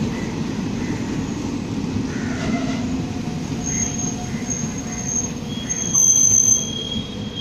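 Jan Shatabdi Express passenger coaches rolling past along the platform with a steady rumble as the train pulls into the station. About halfway in a high-pitched squeal from the running gear sets in; it is loudest around six seconds in.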